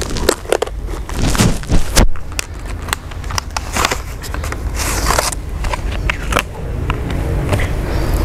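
Irregular clicks, knocks and crackling over a low steady rumble.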